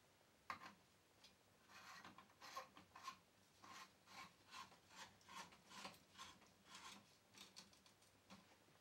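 Faint scraping of a light bulb's screw base being twisted into a softbox's E27 lamp socket, a short rasp with each turn, about two a second, after a single click about half a second in.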